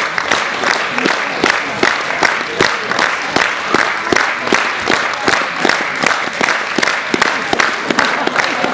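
Theatre audience applauding, the claps falling into an even beat of about three a second.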